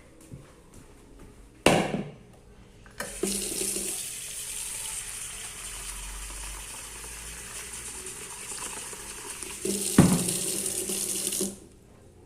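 Water running from a tap for about eight seconds, getting louder shortly before it is shut off abruptly. A sharp knock comes about two seconds in, and another just before the water stops.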